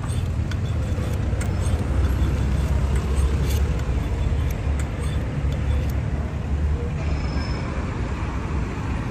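Steady low rumble of street traffic, with a few faint clicks and no clear hatchet strokes.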